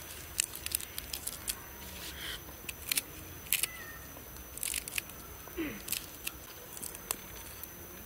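Fresh green leaves and stems snapping and tearing by hand and being cut with a knife into a hollowed squash bowl: a quick, irregular run of crisp clicks and snaps.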